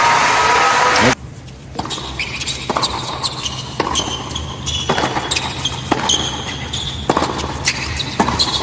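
Crowd applause that cuts off about a second in, followed by a tennis ball being bounced before the serve and then struck back and forth in a rally on a hard court, sharp knocks of ball on racquet and court with short high squeaks of shoes.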